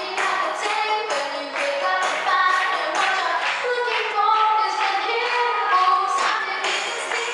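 A girl singing a melody into a hand-held microphone over backing music with a steady beat.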